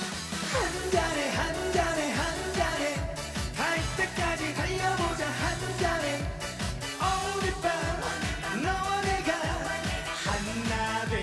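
Live trot music with a steady beat and a sliding, wavering melody line, carried over a festival stage's sound system.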